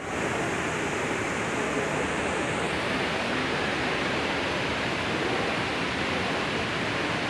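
Water falling in sheets down a row of wall fountains into a pool: a steady rush of splashing water.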